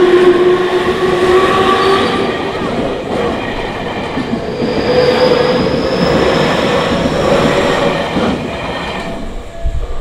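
Electric commuter train on the Tokyu Toyoko Line running at speed through a level crossing: a loud rumble of wheels on rail with clacking over the joints and steady whining tones. Near the end the train noise falls away as the last car clears, leaving the crossing's warning bell ringing.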